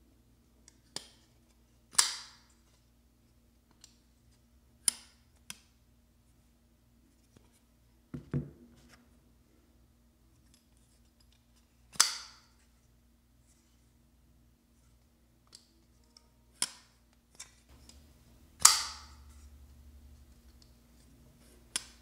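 Vosteed Nightshade folding knife worked by hand: a string of sharp metallic clicks and snaps as the blade is swung open to lock and folded shut again. Three snaps stand out as much louder, each with a brief ring, and one duller thump falls between them.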